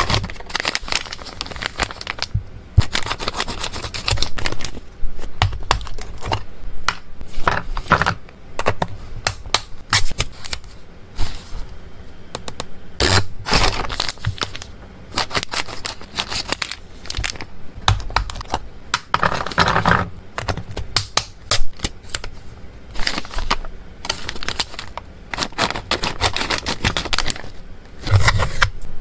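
Plastic and foil treat packaging crinkling and rustling as hands pull a bag from a cardboard box, squeeze it and open a foil pouch. The crackles are dense and sharp and come in clusters with brief pauses.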